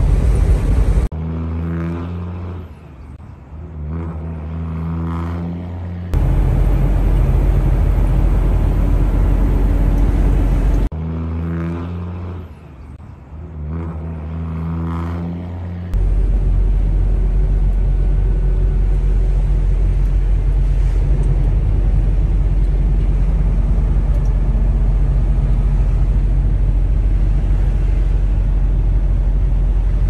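Steady low rumble of a semi truck moving down the highway, engine and road noise heard inside the cab. Twice, from about a second in and again about ten seconds later, the rumble gives way to an identical five-second passage of wavering low droning tones.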